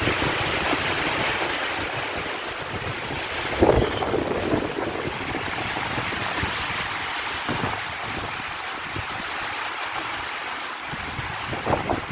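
Heavy rain pouring down in a steady hiss. A dull thump comes about three and a half seconds in and another near the end.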